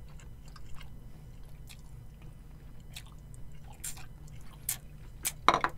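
Eating sounds at close range: wet chewing and short slurps of glass noodles in mala xiang guo, with a louder short mouth sound near the end.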